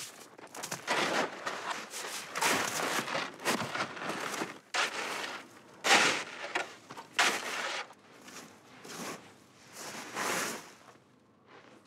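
Snow being scraped and cleared in repeated strokes, about one a second, fading near the end.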